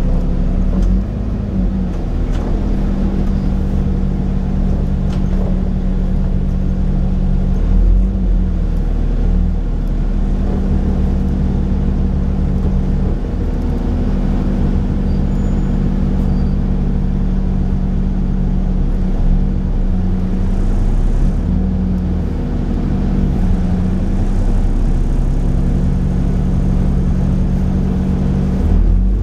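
Alexander Dennis Enviro 400 bus with a Cummins Euro 4 diesel engine and Voith automatic gearbox running steadily, its engine note stepping up and down in pitch a few times.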